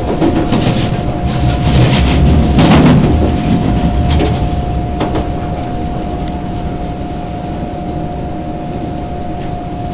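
SMRT C151 electric metro train running at speed, heard from inside the car: a steady rumble of wheels on rail with a constant hum running through it. The noise swells for a couple of seconds about two seconds in, then settles back.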